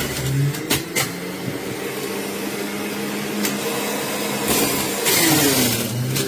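Electric juicer motor running with a steady hum whose pitch drops and wavers as it works under load, then climbs again near the end. A couple of sharp clicks about a second in, and a louder hiss around five seconds in.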